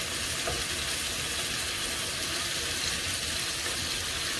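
Beef pieces sizzling steadily as they brown in a hot heavy-duty pan.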